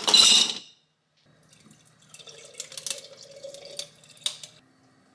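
Water: a short loud rush at the start, then faint drips and small ticks over a low steady hum.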